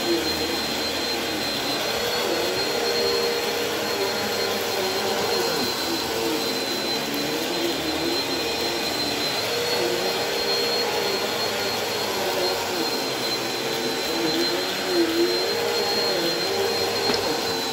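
Stick vacuum cleaner running over a thick shag rug, its motor holding a steady high whine while a lower tone wavers up and down.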